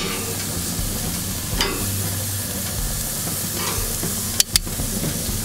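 Broccoli sizzling on a hot gas grill's grates, a steady hiss, with sharp clicks of metal tongs against the grate as the pieces are moved; the loudest is a double click about four and a half seconds in.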